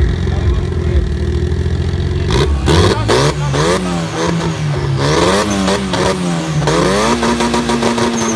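Car engine at a drag-strip start line, running steadily for about two seconds, then revved up and down repeatedly with sharp crackles as the revs first rise. Near the end it is held at high revs before launch.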